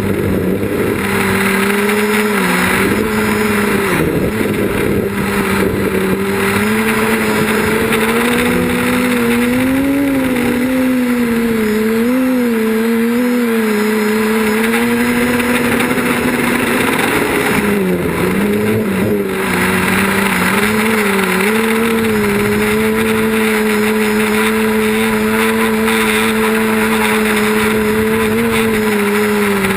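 Quadcopter's electric motors and propellers buzzing steadily, the pitch wavering up and down with throttle changes, over a steady hiss.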